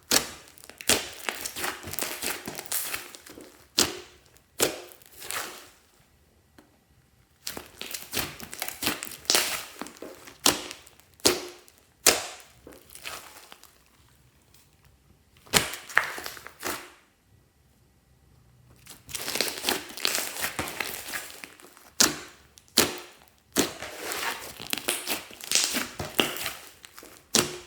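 Glossy slime being squished and pressed by hand: bursts of sticky crackling with sharp pops. It comes in spells, with pauses of a second or two between them.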